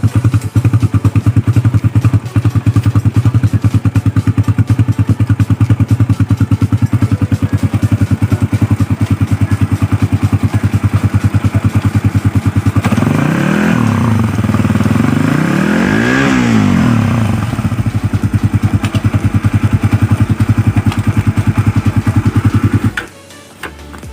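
Suzuki Raider R150 Fi's single-cylinder four-stroke engine idling with a steady rapid throb. It is revved up and back down twice about halfway through, then cut off suddenly near the end.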